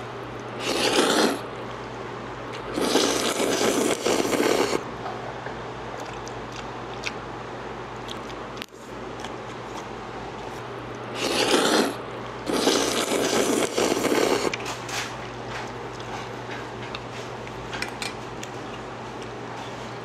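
Bibim-guksu noodles being eaten: four noisy bursts of a second or two each, over a steady low hum.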